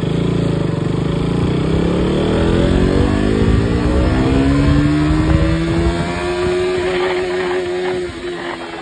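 KTM RC 200's single-cylinder engine revving out flat in first gear: its note rises steadily for about five seconds, holds near the top of the revs, then stutters and falls away near the end as the bike tops out in that gear.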